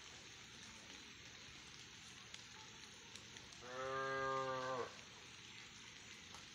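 A cow mooing once, one call of about a second near the middle, with a faint steady hiss behind it.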